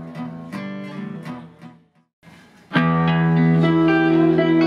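Live band with electric and acoustic guitars and bass: evenly repeated plucked guitar notes that fade out, a brief gap about two seconds in, then a loud held chord.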